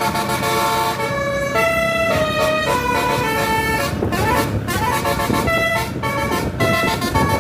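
Tour bus's telolet basuri horn playing a melody of held, changing notes, with a siren-like wail rising and falling about four seconds in.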